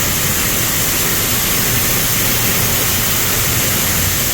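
Steady rushing noise of shelled corn pouring out of a grain truck into the dump pit, with a low machinery hum underneath.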